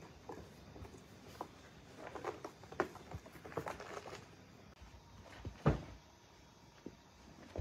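Cats play-fighting: soft thumps, taps and scuffles of paws scrabbling and bodies bumping on a cardboard scratcher and the floor, with one heavier thump a little past the middle.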